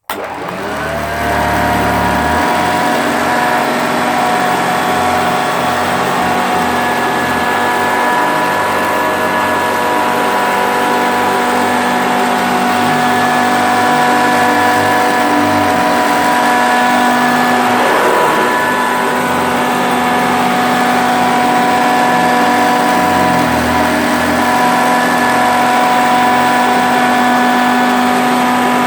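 A mustard-yellow Hoover Junior upright vacuum cleaner is switched on. Its motor spins up within about a second, then runs steadily with a whine made of several held tones. It is a little rough sounding, as a machine that has not been rebuilt.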